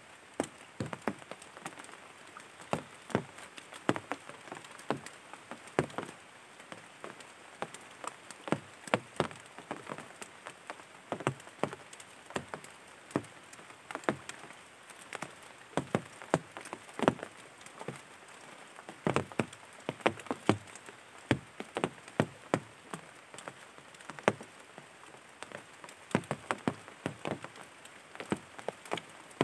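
Irregular sharp taps and clicks, sometimes several close together, over a steady hiss.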